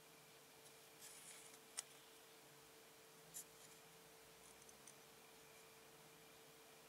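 Near silence with a faint steady hum, and a few soft handling noises from a circuit board turned in the fingers. There is a rustle and then a click just under two seconds in, another short click a little after three seconds, and a few faint ticks later.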